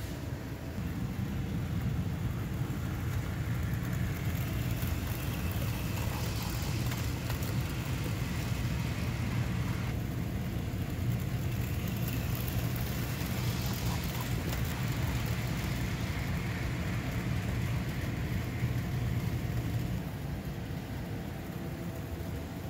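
HO-scale model train locomotives running on track power: a steady whir and rumble of the motors and wheels on the rails, dropping off a few seconds before the end.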